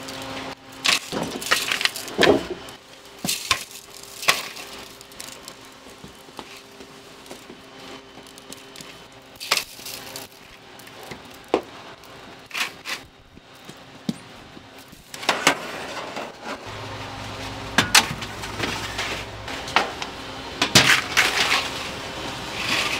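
Irregular clinks and knocks of bakery work: metal trays, utensils and hard objects being handled and set down. About two-thirds of the way through, a steady low hum starts under the clatter.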